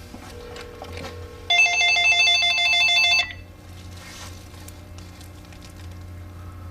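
Telephone ringing: one loud rapid trilling ring about a second and a half long, starting about a second and a half in. A steady low hum lies underneath.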